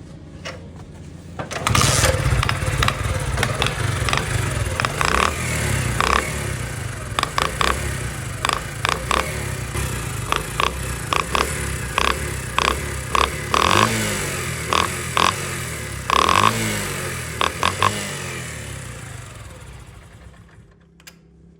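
Motorcycle engine starting about a second and a half in and running, with many sharp, irregular clicks over the engine note. It is revved briefly twice, then dies away near the end.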